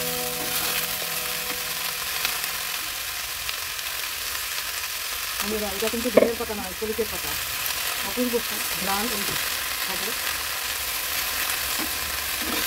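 Vegetables and small fish sizzling as they fry in a pan, a spatula stirring and scraping through them, with a sharp knock of the spatula about six seconds in.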